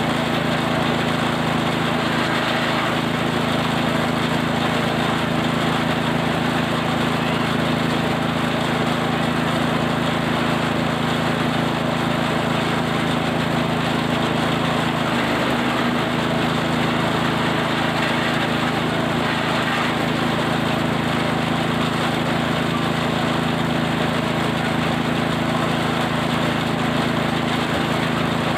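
Small engine-driven feed chopper machine running steadily at a constant speed.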